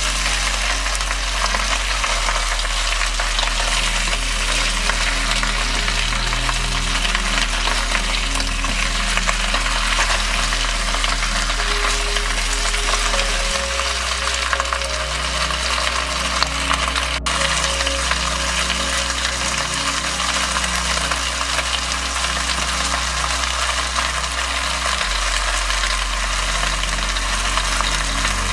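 Pork and chicken pieces sizzling steadily as they brown in a stainless-steel pressure cooker pot, turned now and then with a wooden spoon.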